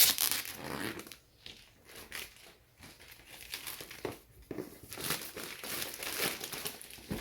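Plastic shrink wrap being torn and ripped off a cardboard box, in irregular crinkling rustles with short pauses between pulls; the loudest tear comes right at the start.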